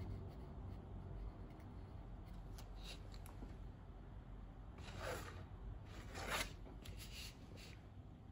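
A sheet of heavy watercolor paper being handled and slid across a desk: two brief rustles about five and six seconds in, with faint light ticks and a low steady room hum.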